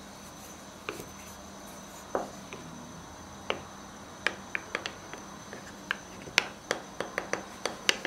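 Wooden spoon stirring crushed garlic in olive oil in a glass jar: light, sharp clicks of the spoon against the glass, a few at first and coming more often in the second half.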